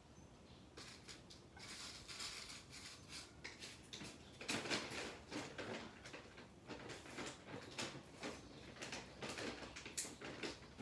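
Plastic bag of dry cat food being handled, with the bag rustling and kibble rattling in irregular bursts. The loudest stretch is about four to five seconds in.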